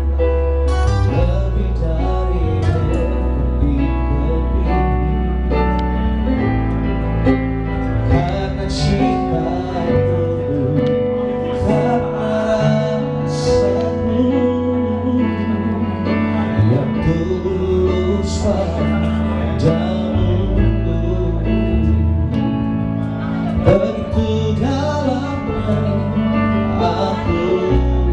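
A band performing a song live on acoustic instruments: a male singer on a microphone, with acoustic guitar, keyboard and bass.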